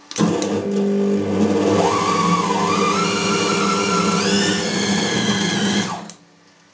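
Tabletop bowl cutter (кутер) running, its motor spinning the knives through chilled salted minced meat for boiled sausage. It starts just after the beginning with a steady motor whine that steps up in pitch partway through, and it is switched off abruptly about six seconds in.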